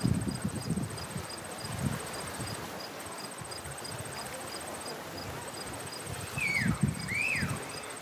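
Insects chirping: a fast, very high, steady trill that breaks off twice, over a slower chirp repeating about three times a second. Near the end come two short sliding calls and a low murmur.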